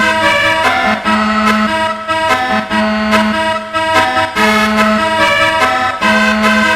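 Music: a reedy, accordion-like melody in held notes over a drum beat and a recurring low note.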